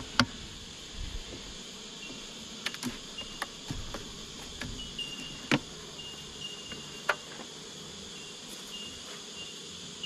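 Sharp wooden clicks and knocks from a hive tool prying at the wooden frames, then the beehive box being handled. The loudest clicks come just after the start and about midway. Under them runs a steady high insect drone.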